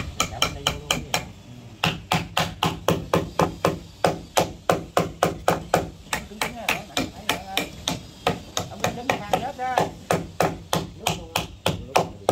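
Claw hammer driving nails into the timber cross-beams of a wooden fishing boat's cabin frame, with quick, even blows about four a second. There is a short pause about a second in.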